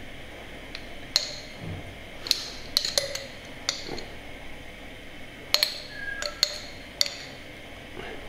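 Metal spoon clinking against a glass salsa jar and ceramic plates while spooning salsa: a series of sharp, irregular clinks, each with a brief ring.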